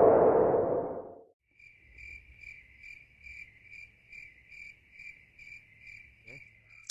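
A loud intro sound fades out about a second in. Then a cricket chirps steadily, about two to three short high chirps a second, over a faint low hum.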